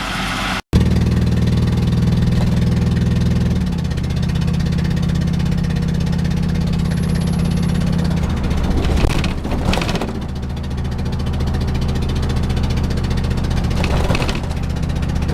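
Ford van's engine running on the road, heard from inside the van: a loud, steady engine drone whose note shifts a few times. It is noisy with a blown spark plug.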